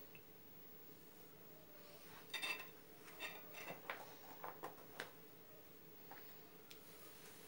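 Kitchen knife clicking and scraping against a ceramic plate as plums are slit open and their stones taken out: a cluster of faint clicks and knocks between about two and five seconds in, over a faint steady hum.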